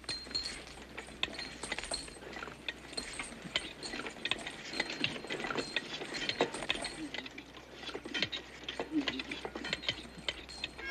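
Metal spoons clinking and scraping on tin plates as a group of men eat, an irregular clatter of small clicks with the odd short metallic ring.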